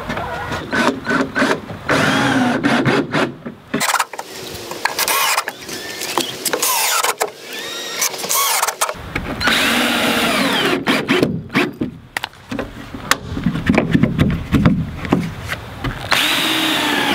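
Cordless drill driving screws into pine boards, in about five short runs, its motor whine rising and falling with each one. Sharp clicks and knocks of handling come between the runs.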